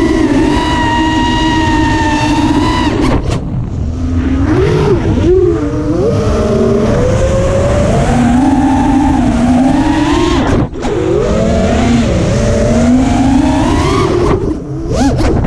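FPV racing quadcopter's brushless motors whining through the onboard camera, the pitch rising and falling as the drone climbs and dives, over a low rumble. The whine drops out briefly about three seconds in, again near eleven seconds and once more near the end.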